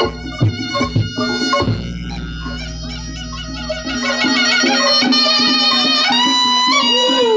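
Reog Ponorogo gamelan music: a slompret, a reedy double-reed shawm, plays a wavering melody over drum strikes. The drums drop out after about a second and a half, and from about four seconds in the shawm plays louder, on long held notes.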